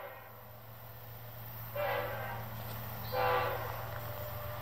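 Diesel freight locomotive's air horn: a note trailing off at the start, then two blasts about a second apart, over a steady low engine rumble.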